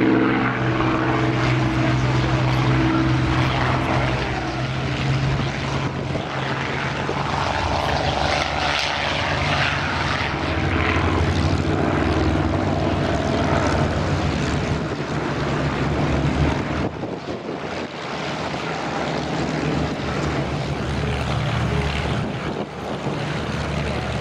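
Second World War piston-engined fighters (Spitfires and Hurricanes) flying past low. Their propeller engines drone steadily, with the pitch shifting as they pass and turn.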